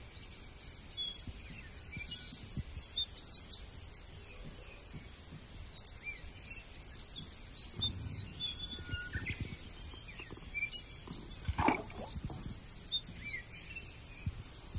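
Small birds chirping on and off with short, scattered high calls, over a few soft low thumps and one sharper knock about three-quarters of the way through.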